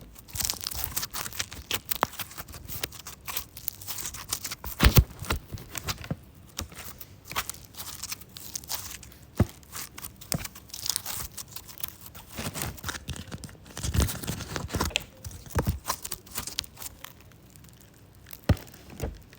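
Packaging for a slime toy being crinkled and torn open by hand, with irregular crackles and rustles and a few sharper snaps, the loudest about five seconds in and again near fourteen seconds.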